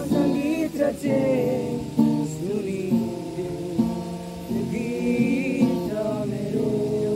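Acoustic guitar strummed in steady chords while several young men sing along together.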